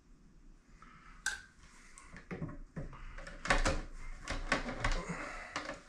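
Short knocks, clicks and scraping of a white plastic pipe being handled and pushed up into the bottom of a plastic washer outlet box. The knocks come in a cluster in the second half.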